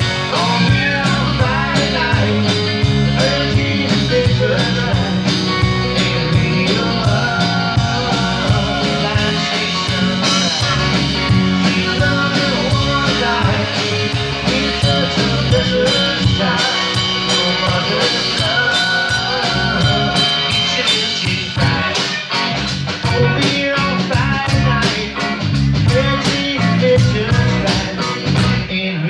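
Live band playing a country-rock song: acoustic guitar, electric guitar, bass guitar and drum kit.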